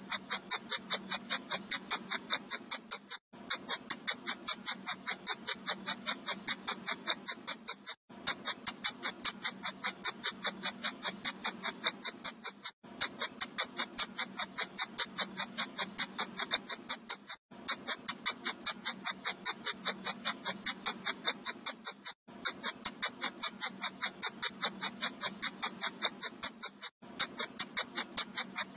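Looped electronic mosquito-repellent sound: a fast, even train of sharp, high clicks, several a second. It breaks off briefly about every four to five seconds as the loop restarts.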